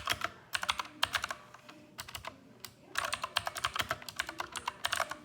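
Redragon K552 mechanical keyboard with clicky blue switches being typed on rapidly: two quick flurries of key clicks with a short pause between.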